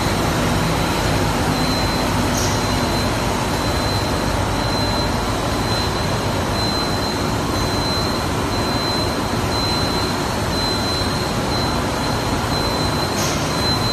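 Steady, even machinery noise of a five-screw 2000 mm cast stretch film extrusion line running at production speed, about 245 metres a minute, with a thin high whine that comes and goes.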